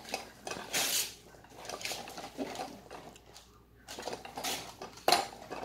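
Gift wrapping paper being torn and rustled in several short rips, with light knocks and clatter in between.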